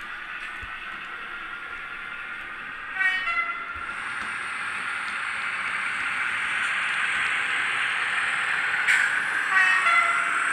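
Piko HO-scale model of an SNCF BB 60000 diesel locomotive running with its digital sound decoder: a steady diesel engine sound from its small speaker, growing louder from about four seconds in, with two short horn blasts, one about three seconds in and one near the end.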